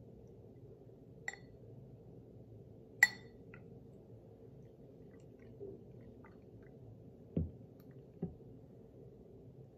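Glass bottle and drinking glass being handled: a light click, then a sharp glassy clink with a brief ring about three seconds in, and two dull knocks near the end, over a faint steady hum.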